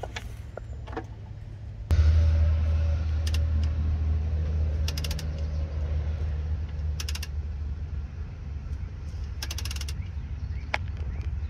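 Half-inch ratchet clicking in short runs as it is worked back and forth on an oil-pan drain plug. From about two seconds in, a loud, steady low rumble runs underneath the clicks.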